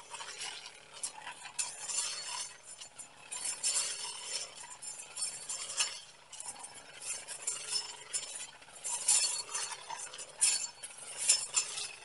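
Brush cutter with a saw-toothed sasa-ba blade slicing through grass and weeds: a rapid, irregular crackle and clinking of stems being cut, coming in clusters with each swing. Its small engine runs quietly at low throttle underneath, since this blade cuts with hardly any throttle opened.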